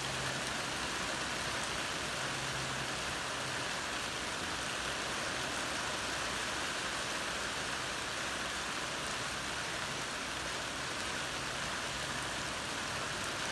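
Heavy rain falling steadily, an even, unbroken hiss with no let-up.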